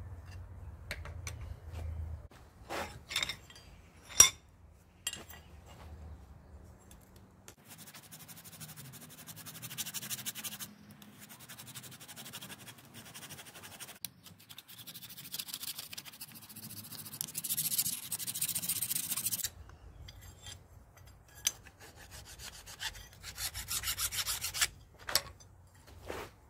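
A few sharp metal clinks, then a hand file rasping across a forged steel trap jaw clamped in a bench vise, in three runs of quick strokes.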